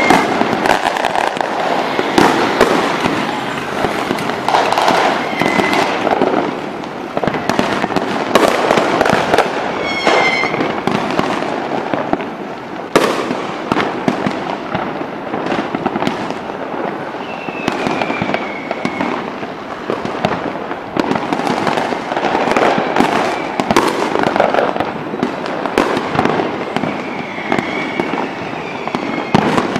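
Large aerial fireworks display: many shells bursting in rapid, overlapping bangs and crackles, with no let-up.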